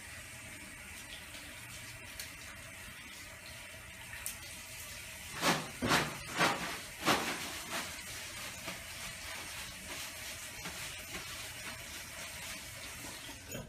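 Tap water running into a bathroom sink during handwashing. About five and a half seconds in, four quick loud pulls of paper towels from a dispenser, then the tap keeps running as hands are dried.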